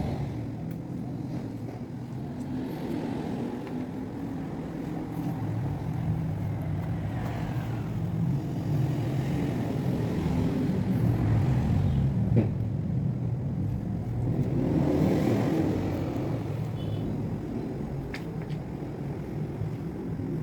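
A motor running steadily with a low hum that grows louder and fuller through the middle stretch, with a few brief clicks.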